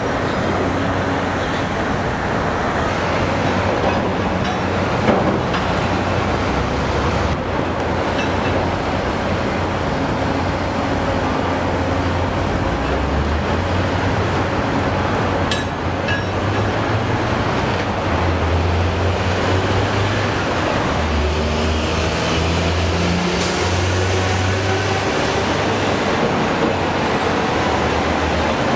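Cat 385C L excavator's diesel engine working under load, its note stepping up and down as the machine lifts and shifts a heavy precast concrete junction box, over a steady wash of construction-site and traffic noise.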